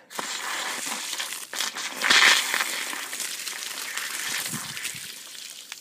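Hose bib on a freshly filled PVC water line opened part way, hissing and spitting as trapped air is pushed out along with a spray of water. The rush is loudest about two seconds in and then eases off.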